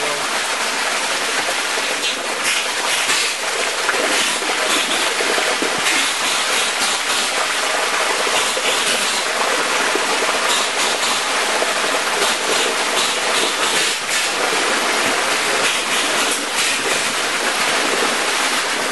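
Muddy water rushing steadily through a widening breach in a sand dam: the outburst flood from an overtopping lake.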